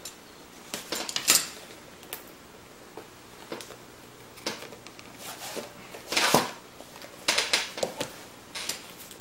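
A cardboard smartphone box being handled and opened on a tabletop: scattered light taps, clicks and scrapes of card, with the longest sliding rasp about six seconds in as the inner box is worked out of its printed sleeve.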